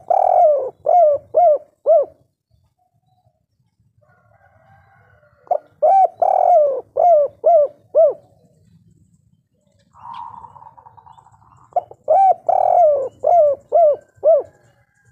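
Spotted dove singing its cooing 'kuk 3' song three times, about six seconds apart. Each phrase is a short opening note, one longer rolling coo, then a run of three or four quick clipped coos.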